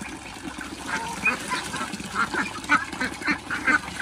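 Flock of white domestic ducks quacking, many short calls overlapping and coming thicker from about a second in.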